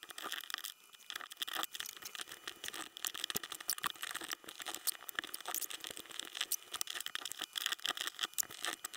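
Small plastic parts of a servo pan/tilt gimbal being handled and fitted together by hand: a dense, irregular run of small clicks, taps and rustles.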